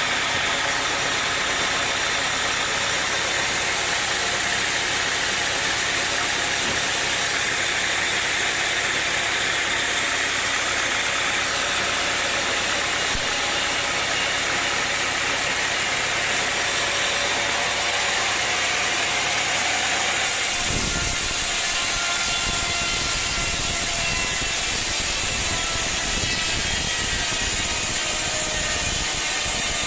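Sawmill machinery running steadily with an engine-like noise. About 20 seconds in the sound turns rougher and deeper, with an uneven low rumble.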